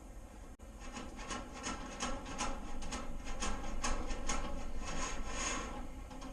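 Steel electrician's fish tape being pushed and rammed through bent metal conduit, scraping and rasping in repeated strokes, about two to three a second, as it hangs up in the pipe.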